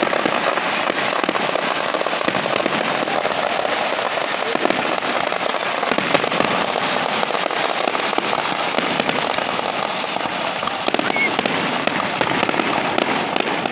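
Fireworks crackling and popping without a break: a dense stream of rapid small bangs and crackles.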